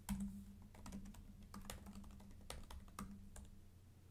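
Typing on a computer keyboard: a faint run of irregular key clicks over a low steady hum.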